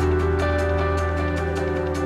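Background music: sustained chords over a held bass note, with a light steady pulse of about six beats a second.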